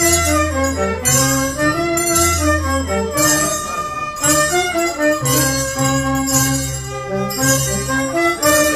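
Andean band music: saxophones and a harp playing a dance tune over a low bass line, with bells jingling on the beat about once a second.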